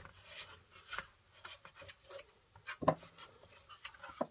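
Light handling noises from a monitor's circuit boards and cables being shifted in their sheet-metal chassis: scattered soft rubs and small clicks, the sharpest click about three seconds in.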